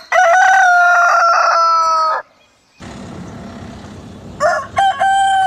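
Two rooster crows: one long crow of about two seconds at the start, then, after a short break and a steady background hiss, a second crow that opens with a few short notes and runs into a long held note near the end.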